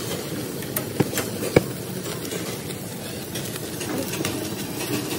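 Grease flare-up on a propane grill: fat dripping from a tomahawk steak burns in a steady rush of flame with a light crackle. Two sharp clicks come about a second in and half a second later.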